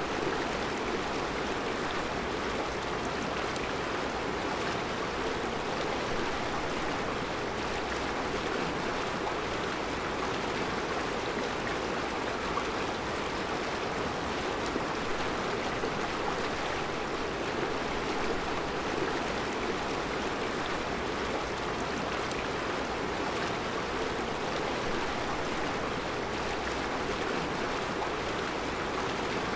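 Mountain river flowing over round rocks in a rocky bed: a steady, even rush of water.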